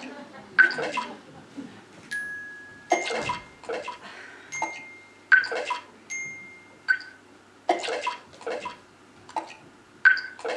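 Instrumental music: sharp percussive hits falling roughly every three quarters of a second, with bell-like chime tones ringing on over some of them.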